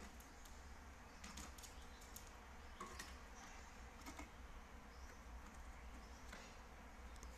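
Faint, scattered taps and scratches of cockatiels' beaks and claws on cardboard and wood, a few irregular clicks over a low steady hum.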